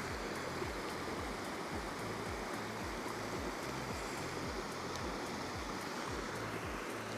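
Steady rushing, watery noise, with a soft low beat of background music repeating evenly underneath.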